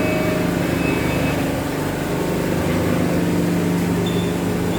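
Horizontal cardboard baling press running steadily, its motor and hydraulic pump giving an even, continuous machine hum.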